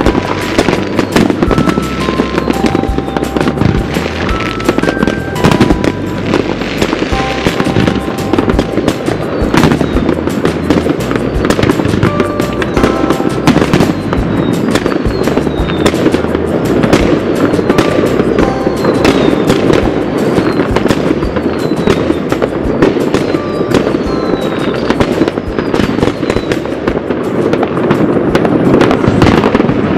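A dense, continuous barrage of New Year's fireworks: countless overlapping bangs, cracks and pops with no let-up, and several falling whistles in the middle of the stretch. A tune plays faintly underneath.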